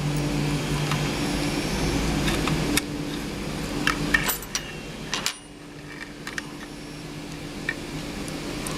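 Scattered light metallic clicks and taps of tools and screws on the 3D printer's nozzle-assembly parts as a removed piece is screwed back on, over a steady low hum that dips suddenly about five seconds in.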